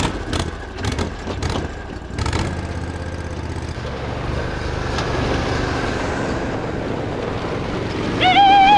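Argo 8x8 amphibious ATV engine running as the machine drives off, steady after a few sharp knocks in the first two seconds. Near the end a loud wavering, warbling tone sounds for about a second.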